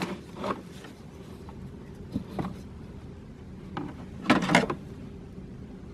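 Hands handling the snowmobile's recoil starter handle and plastic dash panel: a few light knocks, then a louder brief clatter a little past four seconds in.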